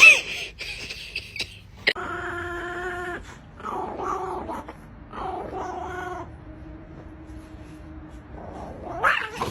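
A dog whining: a short sharp yelp at the start, then several long, drawn-out whining cries, trailing off into a faint steady whine.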